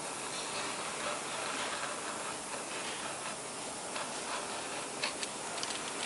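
Hands rubbing and smoothing paper on a plate mounting cylinder, a steady rustling hiss, with a few light clicks about five seconds in.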